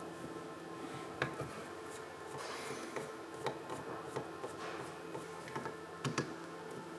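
Quiet background music with a few sharp light clicks and some scratchy rubbing, as of hands working small parts.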